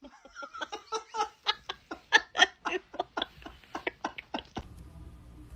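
A person laughing in a quick run of short pulses that stops about four and a half seconds in; a low hum follows.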